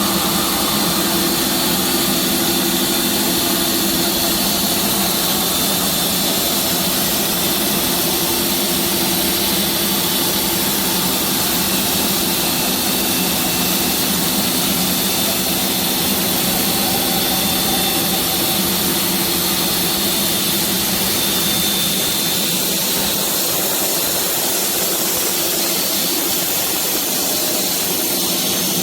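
Woodworking CNC saw machine running steadily: a constant machine hum with a high hiss over it.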